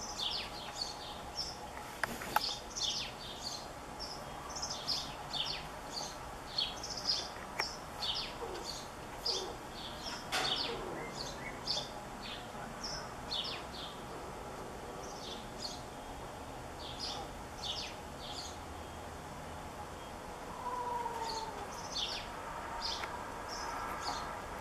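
Small birds chirping: a steady run of short, high chirps, one or two a second, with one lower, falling call near the end.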